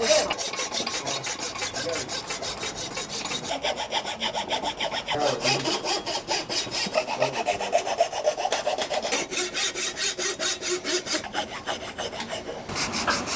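Quick back-and-forth strokes of a hand saw and a round file cutting band grooves into the wooden tips of a slingshot fork, with a change in the strokes a few seconds in and again near the end.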